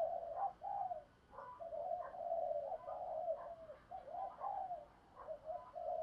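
Spotted dove cooing: repeated low coo phrases, broken by short pauses about a second in and near the five-second mark.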